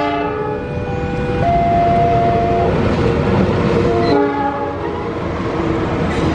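Diesel locomotive of a passenger train sounding its horn in several blasts, the notes stepping in pitch, as the train runs past with a steady rumble of engine and wheels on the rails.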